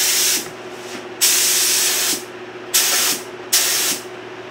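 Compressed-air paint spray gun triggered in short hissing bursts while its pressure and fan pattern are set. One burst is cut off just after the start, followed by a longer one of about a second and two shorter ones about a second later.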